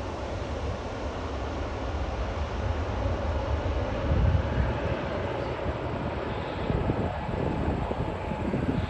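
Jet airliner's CFM turbofan engines passing close by, a deep rumble that swells to its loudest about four seconds in and then eases slightly.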